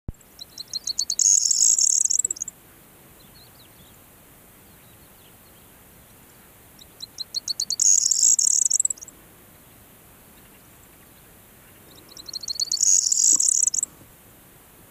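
Corn bunting singing three songs about five seconds apart. Each song is about two seconds long: a run of ticks that speeds up into a dense, high rattle.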